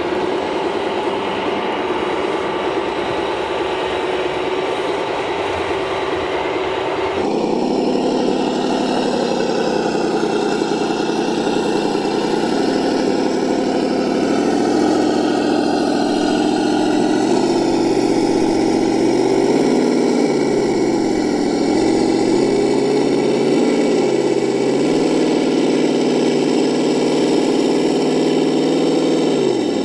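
A steady mechanical hum with one held tone, which changes abruptly about seven seconds in to a simulated engine sound from a Reely sound module in a Traxxas TRX-4 Ford Bronco RC crawler. The module's engine note runs throughout, rising and falling in pitch as it revs up and down.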